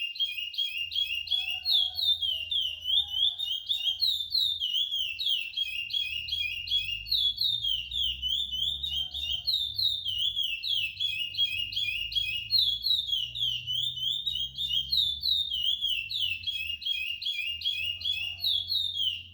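Young male chestnut-bellied seed finch (curió), still in brown juvenile plumage, singing a continuous song of fast, high whistled notes that repeat in phrases.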